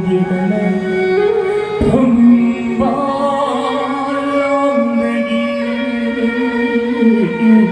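Music: a melody of long held notes, with singing and instruments, and a sharp low hit a little under two seconds in.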